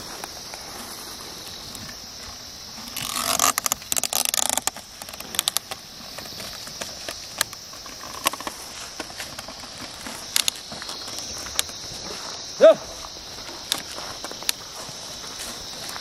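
Scraping, scuffing and clicking of an ox-drawn wooden plough and hooves working dry soil, with a dense burst of it about three seconds in and scattered knocks after. A steady high insect buzz runs underneath, and a short shouted call, the loudest sound, comes near the end.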